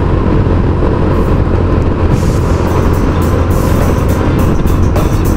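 Motorcycle running at road speed, a steady low engine and road rumble, with music and its beat coming in about two seconds in.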